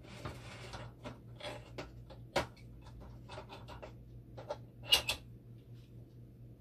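Small clicks and knocks of hands working on the machine's pump motors while brushes are replaced. The loudest is a sharp double knock about five seconds in, over a steady low hum.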